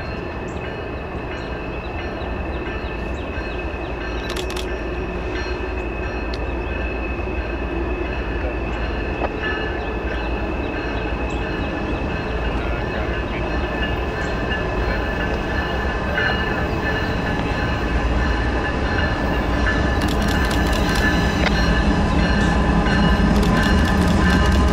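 A freight train led by GE ES44AH diesel locomotives approaches and grows steadily louder, with a steady high ringing over a low rumble that swells toward the end as the locomotives draw close.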